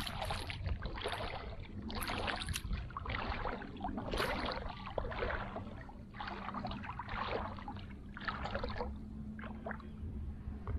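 Feet in flip-flops wading through shallow water over submerged concrete, each step a splash, roughly one a second.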